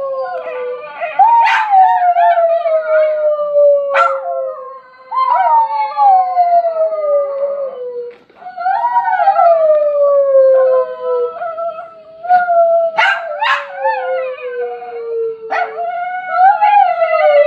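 Small white Chihuahua-type dog howling: about five long, drawn-out howls with short breaks between them. Each begins with a sharp yelp and slides slowly down in pitch.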